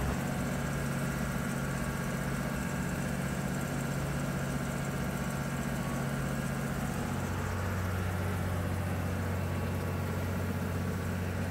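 Tractor engine running steadily, heard from inside the cab, while it pulls an airblast sprayer that is spraying, with a steady rushing hiss over the engine hum. About seven seconds in, the hum settles onto a deeper, stronger note.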